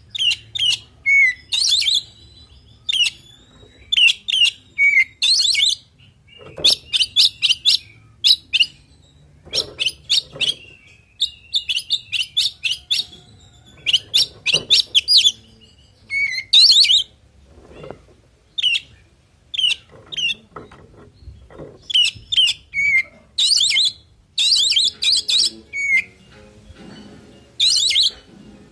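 Oriental magpie-robin (kacer) singing: short bursts of rapid, high chattering notes and whistles, each phrase different, coming every second or two. A varied song packed with fill-in phrases (isian).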